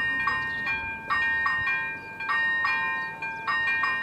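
Electronic level-crossing warning bells (AŽD ZV-01 and ZV-02) ringing in a fast, steady string of bright dings, about two to three a second, sounding the warning that a train is approaching.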